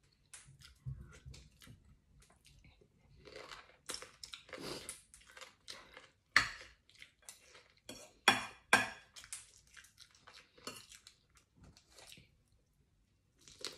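Metal spoon clinking and scraping against a pan of soup, with a few sharp clinks about six and eight seconds in, between stretches of close-up chewing.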